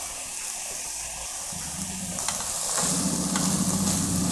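Chopped broad beans and grated coconut sizzling in a pan, stirred with a wooden spatula. The stirring gets louder about three seconds in.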